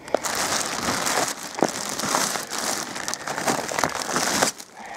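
Plastic wrapping on a pallet of bagged wood pellets crinkling and rustling as it is pulled off by hand, with scattered small crackles; it stops about four and a half seconds in.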